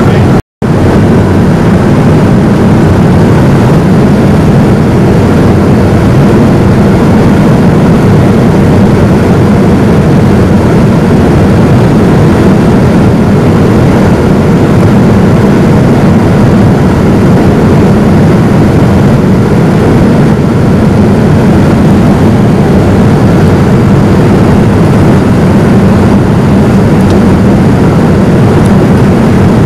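Steady drone of a Boeing 787-9's cabin at cruise: jet engine and airflow noise heard from a passenger seat. A split-second dropout about half a second in.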